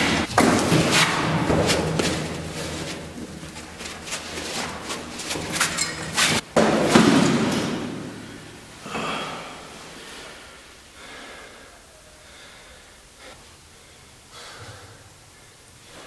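A run of heavy thumps and bangs with noisy scraping, dying away after about eight seconds to a few faint sounds.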